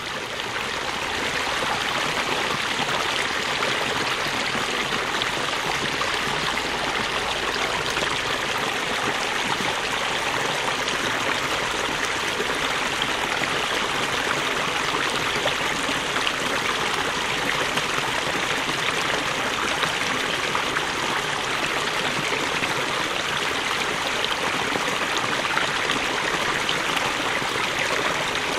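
Creek water flowing over a very small waterfall: a steady rushing and trickling that fades in over the first two seconds and then holds even.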